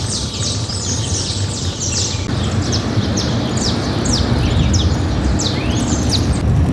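Birds chirping over and over, many short high calls that fall steeply in pitch and overlap one another, over a steady low rumble.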